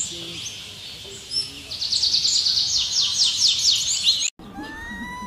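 A songbird sings a fast trill of repeated descending notes for about two and a half seconds over a steady high hiss. The sound then cuts off abruptly and a fainter wavering call follows.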